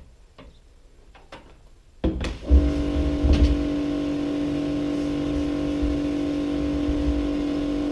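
Electric pressure washer starting about two seconds in and running with a steady hum over the hiss of its water jet, spraying the inside of a plastic IBC tank to clean it out.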